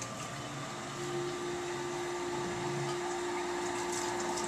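Hydraulic bench's water pump running steadily with a hum, a steady tone joining about a second in as the level steps up slightly.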